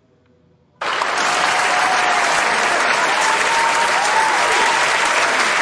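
A large audience clapping, starting suddenly about a second in and then holding steady as dense, loud applause.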